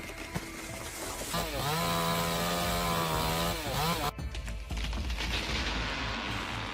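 Chainsaw revving up to full throttle about a second in, held at high speed for about two seconds, then dropping off. After an abrupt change near four seconds, a steadier rushing noise follows.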